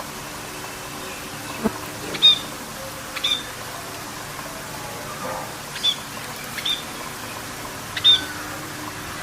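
A bird giving short, high chirps, about five of them spread over several seconds, against a steady background hiss.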